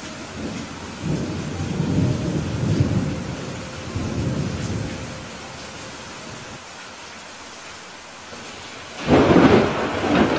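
Steady rain falling, with a low rumble of thunder lasting a few seconds from about a second in. A sharp, loud thunderclap comes about nine seconds in and is the loudest sound.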